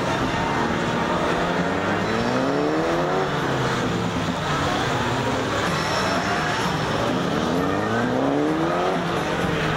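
Several police motorcycle engines running at once as the bikes ride tight low-speed turns, the pitch rising as riders open the throttle out of a turn, about two seconds in and again about seven seconds in.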